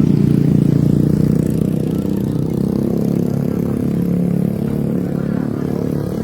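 A motor vehicle engine running steadily, a little louder in the first second and a half.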